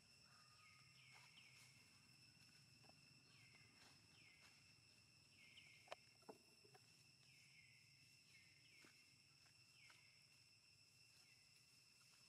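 Near silence: faint outdoor ambience, with a steady high-pitched whine and short chirps repeating about once a second, and two faint clicks near the middle.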